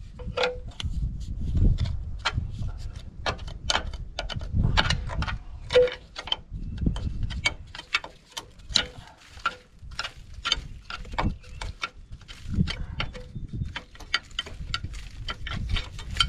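Irregular metallic clicks and taps, a few a second, some ringing briefly, over a low rumble: hand tools working on the Cat 953C loader's hydraulic hose fittings.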